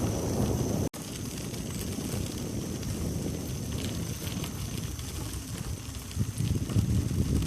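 Wind buffeting the microphone of a moving bicycle, a rough low rumble mixed with tyre noise from the trail. The sound cuts out for an instant about a second in, and the rumble grows stronger and gustier near the end.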